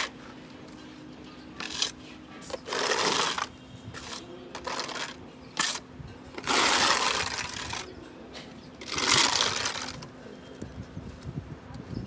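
Flat metal blade scraping across a wet textured plaster coat on a wall, in several separate strokes about a second long, with a couple of short clicks between them.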